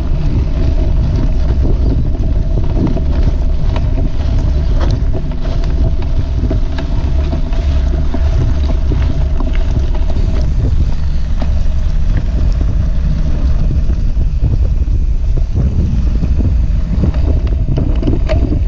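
Wind buffeting a bike-mounted camera's microphone and mountain-bike tyres rumbling over a dirt trail, with a steady hum and scattered small ticks and crackles from the ground.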